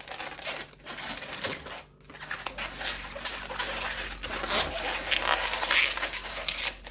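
Inflated latex modelling balloons rubbing, squeaking and crinkling against each other as they are twisted and wrapped by hand, a dense rustling with a short lull about two seconds in.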